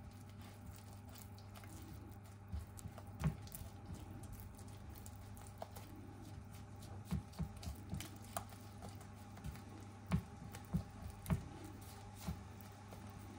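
A fork stirring tempura batter in a bowl: irregular light clicks and taps of the fork against the bowl with wet squishing, over a steady low hum.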